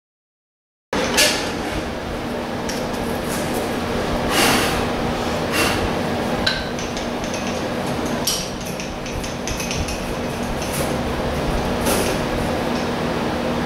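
Metal lathe running with a steady hum while a boring bar cuts inside the bore of a metal workpiece, with metal chips clinking and ticking at irregular moments. The sound starts abruptly about a second in.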